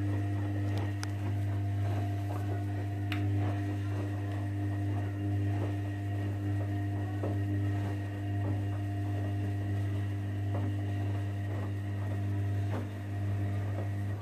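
Sangiorgio S5510I front-loading washing machine's drum motor running with a steady hum, turning a load of sheets in soapy wash water with light sloshing and ticks. It cuts off suddenly at the end as the drum stops between wash rotations.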